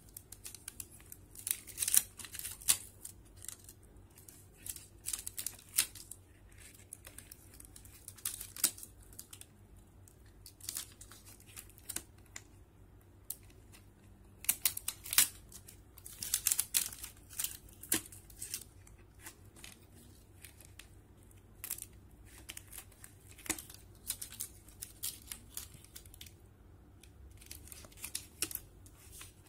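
Thin plastic sticker sheet crinkling and crackling as it is handled, in short irregular rustles with quieter gaps between.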